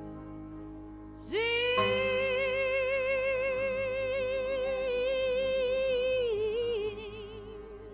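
A solo gospel singer holds one long, wordless note with a wide vibrato for about five seconds over soft sustained keyboard chords; the note sags and fades near the end.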